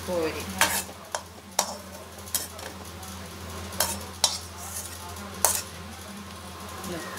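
A perforated metal ladle scraping and clinking against a metal kadai as fried ginger slices are scooped out of the hot oil, with about seven sharp clinks at irregular intervals. The oil sizzles beneath.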